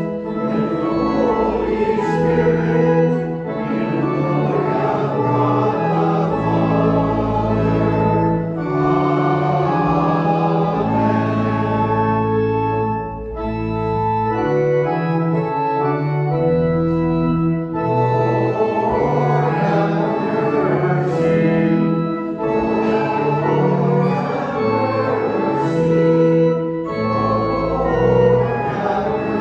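Organ and voices singing a hymn in church, held chords over long sustained bass notes.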